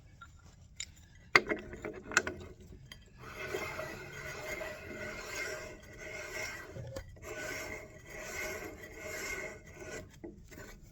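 Metal rasping and scraping as a threaded wheel-removing tool is turned into a surface grinder's wheel hub against the spindle arbor, to press the wheel off its taper. Two sharp clicks come first, then a run of repeated rasping strokes.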